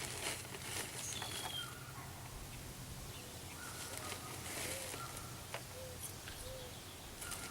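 Short bird chirps scattered over faint rustling and scraping, as potting soil is scooped into a flower pot.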